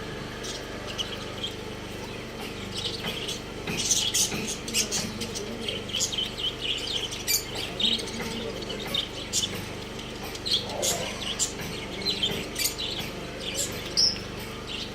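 Small birds chirping: many short, high chirps in quick, irregular succession.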